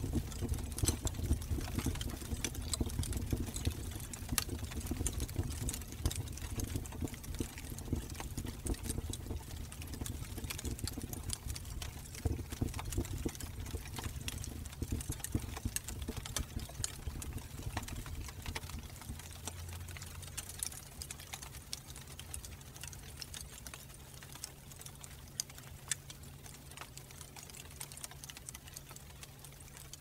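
Fire burning: a low, steady roar with many sharp crackles and pops, gradually growing quieter.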